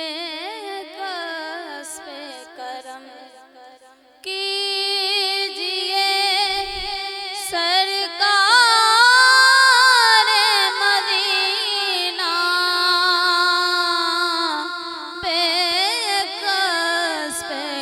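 A woman singing a wordless devotional naat introduction, her voice sliding and wavering between long held notes. About four seconds in it becomes louder and fuller.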